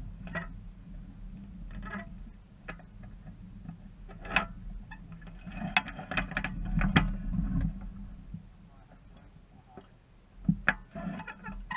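Small sailboat under way: scattered clicks and knocks from its lines, blocks and fittings, with a steady low rumble underneath.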